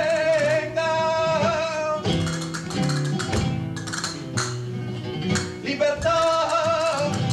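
Live flamenco seguiriyas: a singer holds a long, wavering sung line over guitar. About two seconds in the voice breaks off for guitar playing and sharp percussive hits, and near the end the singing comes back.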